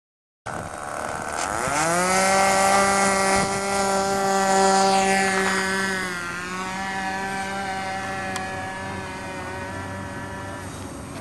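Model airplane's OS MAX .40 two-stroke glow engine throttling up for the takeoff run, its pitch rising steeply and then holding steady at full throttle. About six seconds in, the pitch dips slightly as the plane passes and lifts off, and the sound slowly fades as it climbs away.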